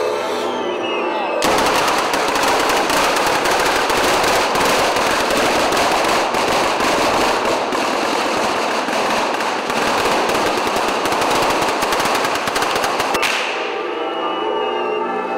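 Firecrackers on the Scoppio del Carro fireworks cart going off in a dense, unbroken crackle of rapid bangs, starting abruptly about a second and a half in and cutting off suddenly near the end. Church bells ring around it.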